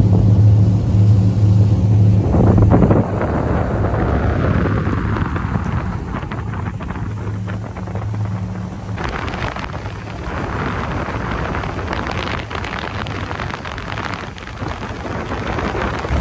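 Wind buffeting the microphone outdoors, a steady rushing noise over a low rumble. Backing music with a steady bass fades out about three seconds in.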